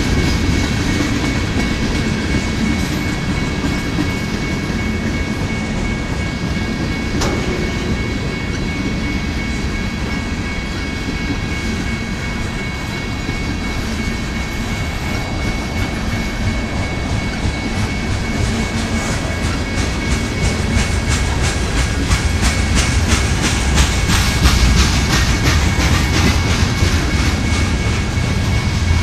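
Freight train cars rolling past on the rails: a steady rumble of steel wheels on track with a thin, steady high tone over it. From about eighteen seconds in, dense rapid clicking of wheels over the rail joints grows louder as covered hoppers pass.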